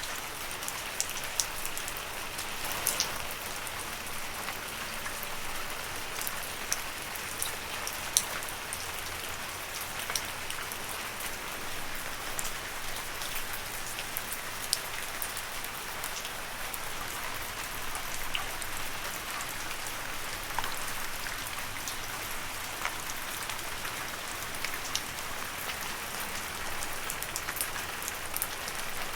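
Steady rain falling on leaves: an even hiss with many close, sharp drop taps and a few louder single drops now and then.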